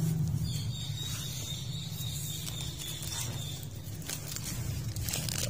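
Aluminium foil crinkling in short bursts in the second half as hands tear open a foil-wrapped steamed chicken, over a steady low hum.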